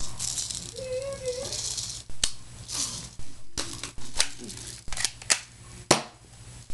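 Airsoft pistol being handled, cocked and fired: a short rattle, then a string of about seven sharp plastic clacks over the last four seconds.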